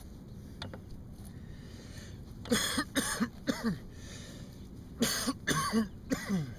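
A man coughing in two bouts of several harsh coughs each, the first about two and a half seconds in and the second about five seconds in.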